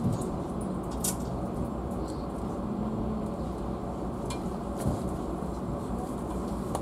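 Steady low rumble inside a passenger railway car arriving at a station and almost at a standstill, with a few sharp clicks and knocks, the loudest about a second in.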